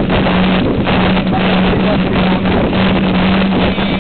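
Wind buffeting the microphone and rumble from a mountain bike rolling over a rough lane, loud and ragged, with a steady low hum underneath.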